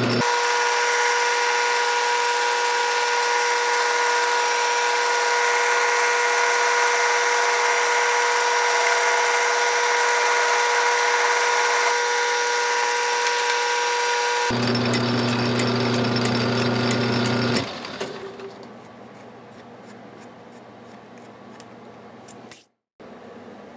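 Metal lathe running steadily, its motor and gearing giving a fixed tone with a hiss over it, while the cutting tool turns a bronze cap screw. About 14 seconds in the pitch drops abruptly to a lower hum. A few seconds later the lathe stops, leaving a much quieter stretch with scattered light clicks.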